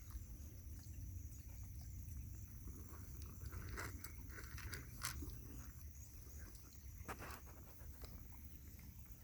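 Faint chewing and crunching of farm animals eating feed, with a few sharper crunches about four and five seconds in.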